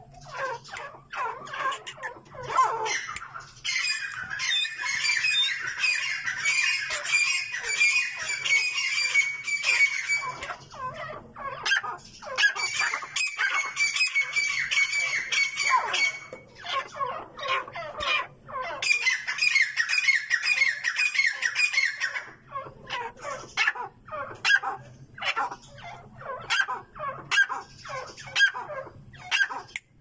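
Partridges (teetar) calling in fast, harsh, squawking chatter. It comes in three long bouts of a few seconds each through the first two-thirds, then breaks into scattered shorter calls.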